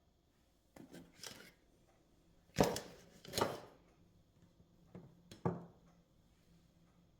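Six short knocks and scrapes of hands-on kitchen work, the loudest a sharp knock about two and a half seconds in.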